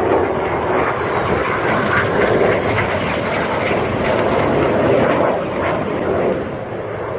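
Jet engine noise from a BAE Hawk display jet in flight, a steady loud rushing noise that eases off in the last couple of seconds as the jet draws away.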